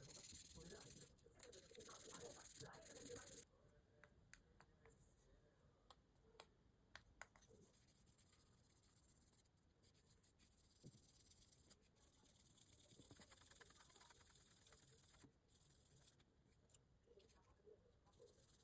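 Faint scratching and small clicks of handwork on a diecast model car. The scratching stops about three seconds in, leaving near silence broken by a few light clicks.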